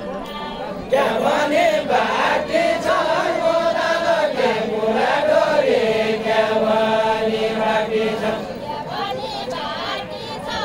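A woman's voice singing a Deuda folk verse unaccompanied, in a long, wavering line with sliding ornaments, beginning about a second in and trailing off near the end, over faint crowd chatter.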